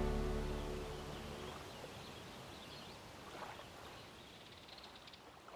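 The last held chord of the soundtrack music dying away, then faint outdoor ambience with a few short bird chirps.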